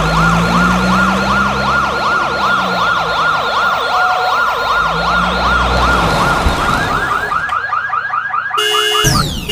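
Electronic police siren in a fast yelp, warbling up and down about three times a second. Near the end it gives way to a different electronic sound: steady buzzy tones and a quick falling sweep.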